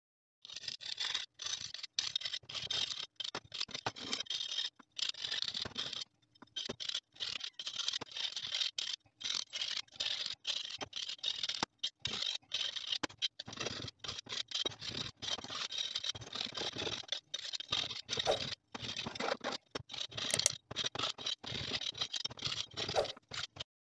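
Repeated short strokes of a hand tool scraping the burrs off the freshly cut edges of short pieces of steel rectangular tube, metal on metal, with brief pauses between strokes.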